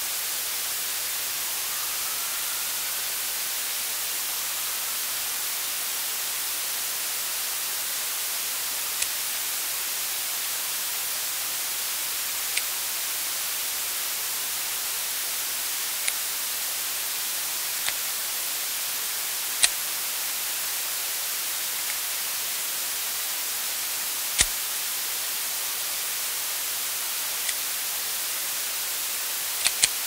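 Radio static: a steady hiss broken by scattered sharp crackles, about nine of them, with a faint rising whistle about two seconds in.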